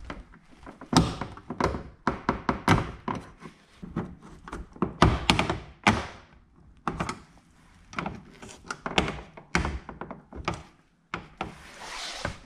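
Plastic door trim panel being levered off its retaining pins with a clip-removal tool and pliers: a run of irregular sharp clicks, taps and knocks of plastic and tool on the panel, with a short scrape near the end.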